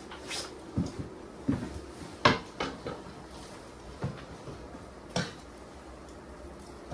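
Irregular knocks and clatters of objects being handled and set down, about eight in all, the loudest a little over two seconds in, over a faint steady hiss.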